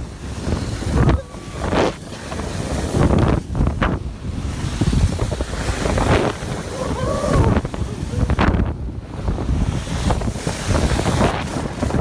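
Rushing wind on the phone microphone and the hiss and scrape of a snow tube sliding fast down an icy tubing lane, jolted by several sharp bumps along the way.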